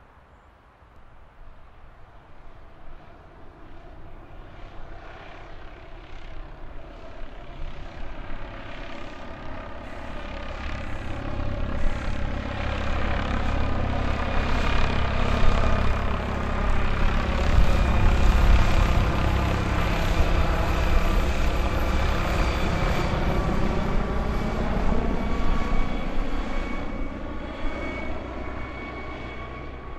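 Aircraft flying over: a low engine rumble that builds slowly, peaks a little past halfway as it passes overhead, then fades away, its tone sweeping as it goes by.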